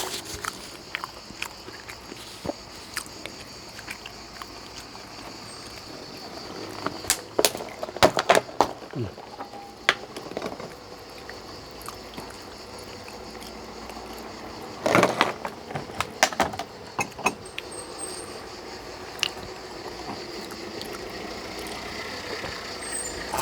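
Eating sounds: scattered clicks and knocks of utensils and food being handled and chewed, in two clusters, over a steady background hiss.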